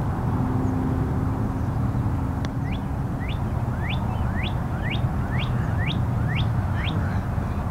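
A bird calling over and over, short sharp rising chirps about twice a second, over a steady low rumble.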